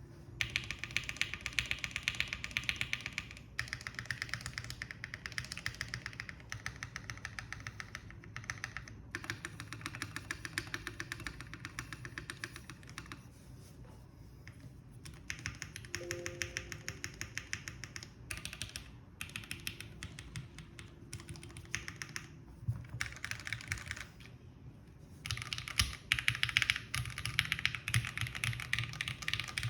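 Fast typing on a gasket-mounted Maker Scarlet TKL mechanical keyboard with lubed JWick Black linear switches on a POM plate and ePBT keycaps. Dense keystrokes come in runs of a few seconds, with brief pauses between them.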